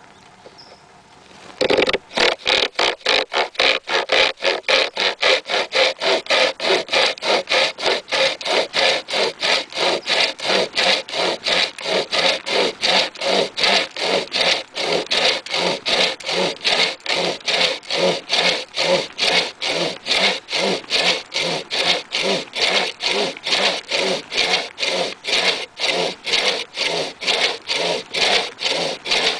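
SaberCut pocket chainsaw, a bidirectional saw chain with nylon webbing straps, pulled by hand back and forth through a dead log: steady rasping saw strokes, about three a second, starting about a second and a half in.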